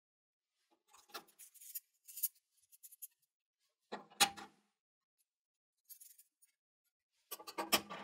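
Metal arms of a marking multi-tool being handled on a wooden workbench: light scrapes and ticks of metal sliding on metal, a sharp click with a brief ring about four seconds in, and a cluster of clicks and clatters near the end as the arms are set into a T.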